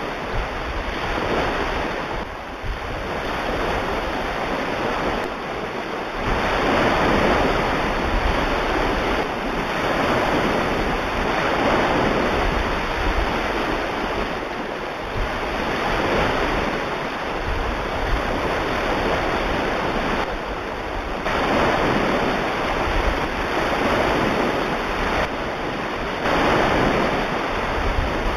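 Ocean waves washing in, a steady hiss that swells and falls back every few seconds.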